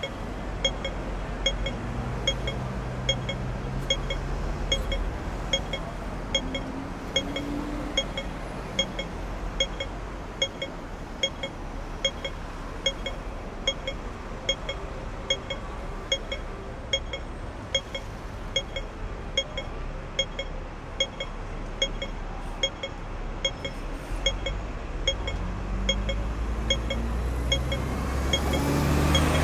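Hong Kong audible pedestrian crossing signal beeping evenly at its slow rate, about three short beeps every two seconds: the slow wait signal telling pedestrians not to cross. Beneath it runs the hum of street traffic, with a vehicle's engine rising as it passes close near the end.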